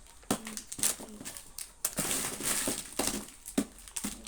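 Crinkling and rustling of wrapped chocolates being handled and counted, with a string of sharp clicks and taps.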